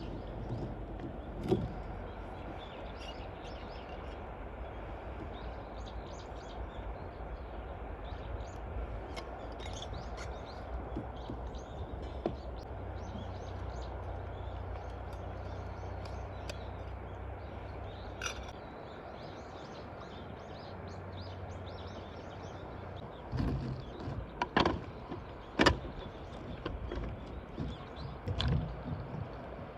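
Outdoor ambience with a low steady rumble that drops away about two-thirds of the way through, small birds chirping, and a run of sharp knocks and clatters near the end.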